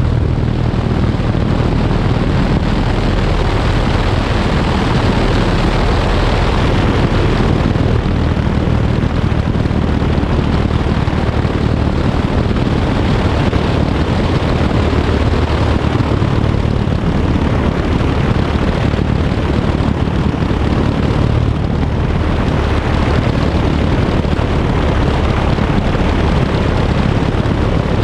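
Blériot XI-2 monoplane's engine and propeller running steadily in cruising flight, heard from on board the airframe: a constant low drone under a steady rush of noise.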